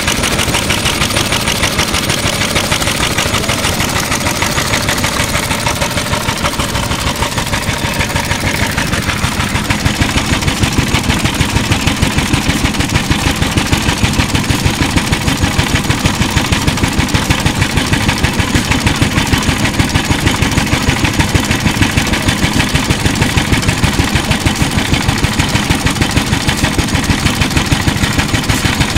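Yoshida Type C 2.5 hp single-cylinder hopper-cooled agricultural oil engine running steadily with an even, rapid beat of exhaust pulses, its cooling water at the boil. A little louder from about ten seconds in.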